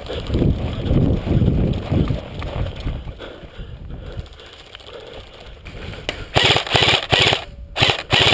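Airsoft electric rifles firing short full-auto bursts, each a rapid rattle of shots, several bursts one after another in the last couple of seconds. Before that, a low rumbling in the first two seconds.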